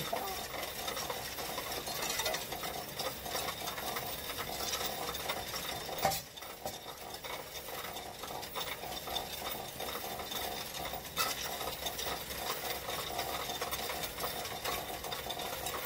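Coinstar coin-counting kiosk running as loose coins are fed into its tray: a steady mechanical whir with a dense rattle and clink of coins. A sharper clack comes about six seconds in and another near eleven.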